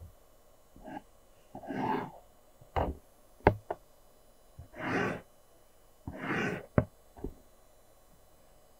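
Graphite pencil drawing long lines on paper: three longer scratchy strokes, each about half a second, with a few shorter ones, and sharp taps of the pencil between them.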